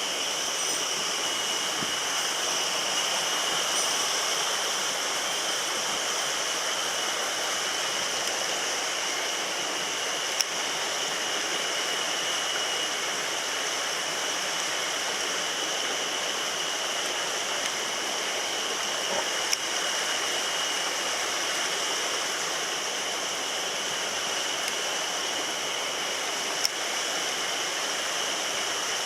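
Mountain stream water rushing steadily over rocks, with a few single sharp clicks along the way.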